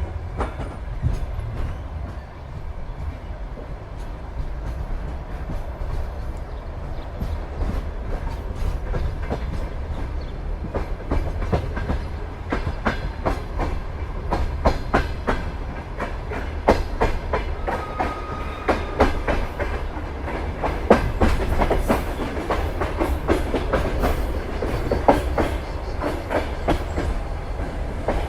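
Railway carriage wheels clattering over rail joints above a steady low rumble of a moving train. The knocks come thicker and louder from about halfway through, with a brief high tone around two-thirds of the way in.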